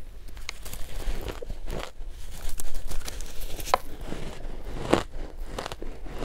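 Close-miked biting and chewing of soft, powdery shaved ice dusted with matcha powder, eaten by the spoonful: irregular crisp crunches, a few sharper bites standing out.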